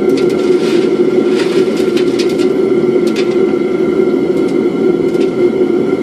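Small pieces of copper shot clinking and rattling as they are handled and scooped out of a metal bucket of water, in scattered light clicks. Under them is a steady low rumble.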